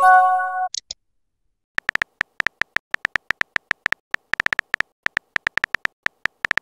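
A short message-sent chime of a few tones together, lasting under a second, then, after a brief pause, a fast irregular run of phone keyboard tap clicks as a text is typed.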